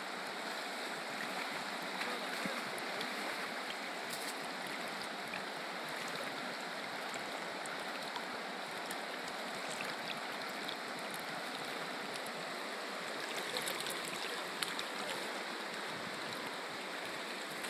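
Fast river rushing steadily over rocks and rapids.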